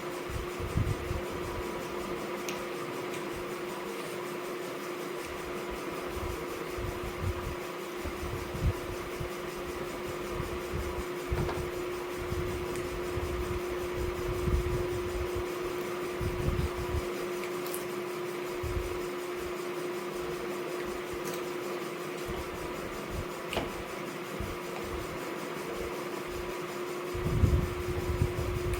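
Electric fan running with a steady hum, with occasional soft low thumps.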